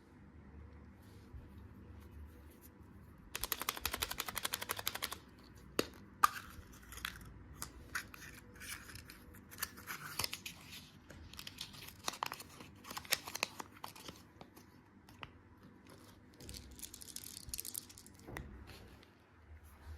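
Candy packaging being torn open and crinkled by hand: a rapid run of ticks for about two seconds a few seconds in, then scattered crackles and sharp clicks.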